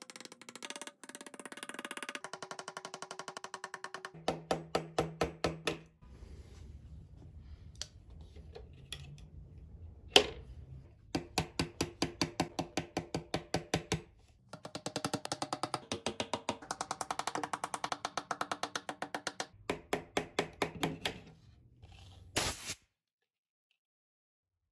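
Claw hammer tapping the back of a utility knife blade in quick runs of light strikes, the steel ringing at each tap, with pauses between runs and one harder crack partway through. The blade is being driven through the fiberglass around a crushed, sunken fin box to cut it out of the surfboard.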